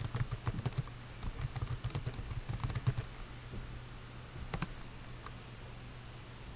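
Typing on a computer keyboard: a quick run of keystrokes for about three seconds, then a single louder key press, the Enter key, about four and a half seconds in.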